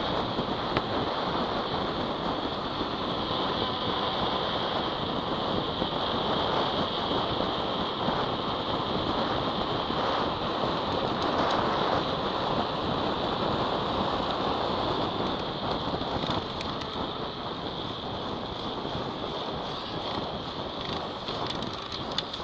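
Steady wind rushing over the microphone of a handlebar-mounted camera as a mountain bike descends a paved road at speed, mixed with the bike's tyres rolling on the asphalt.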